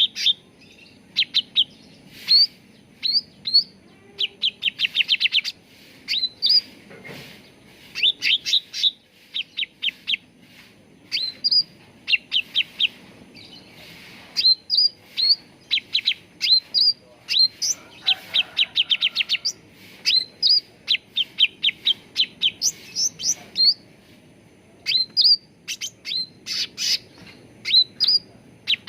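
Cucak ranting songbird singing: quick runs of short, sharp rising chirps, several to a burst, repeated with brief pauses throughout.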